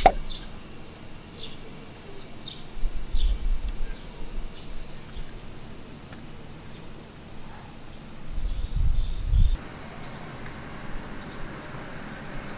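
Cicadas singing, a steady high-pitched drone through the whole stretch. There are low rumbles about three seconds in and again around nine seconds.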